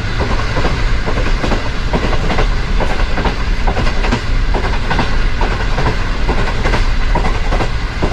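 A train running along the track: a loud, continuous rumble with a fast, irregular clatter of wheels over the rails.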